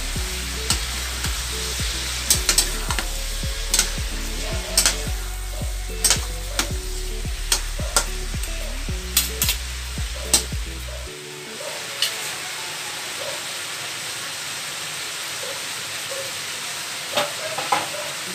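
Vegetables sizzling in a stainless-steel wok while a metal spoon stirs them, clacking and scraping against the pan. The strokes come often for the first ten seconds or so, then only a few near the end while the sizzling goes on.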